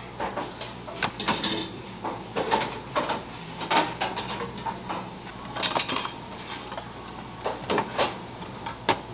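Dishes and metal utensils clinking and clattering at irregular intervals, over a steady low hum.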